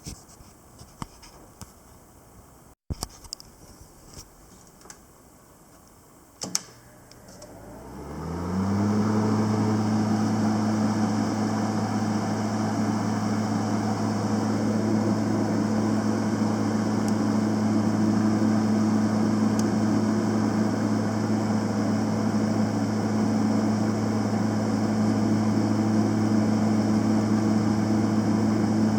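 A few light clicks, then a Panasonic YD-350GB2 semi-automatic welder is switched on with a click about six seconds in. Its hum rises in pitch over about two seconds as the machine spins up, then settles into a steady, loud drone.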